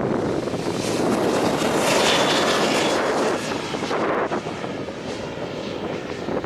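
Airliner's jet engines passing close by, loudest about two seconds in and then fading, with a faint high whine over the engine noise.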